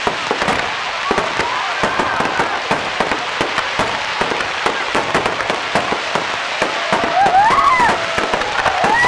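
Fireworks display: a dense, rapid run of aerial shell bursts, bangs and crackling that overlap one another without a break.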